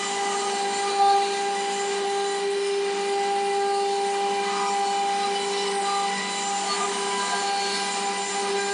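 Stone CNC router's spindle running with a steady whine as it carves a stone slab.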